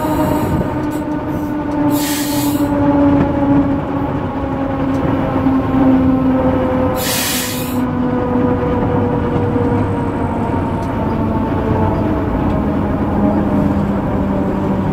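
Diesel locomotive engine running steadily as the train rolls along the rails, its note slowly sinking and dropping lower about twelve seconds in. Two short hisses come about two and seven seconds in.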